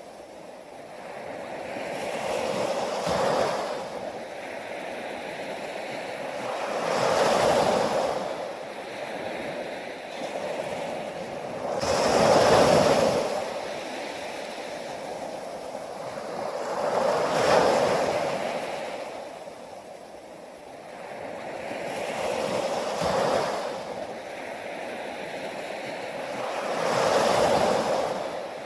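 Ocean waves washing onto a shore, each one surging up and then drawing back, about one every five seconds.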